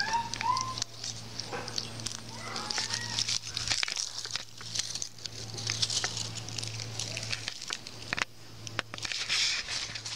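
Steady low electrical hum from a Rheem packaged heat pump, under crackling, rustling noise with scattered clicks. A few short rising chirps sound in the first second or so.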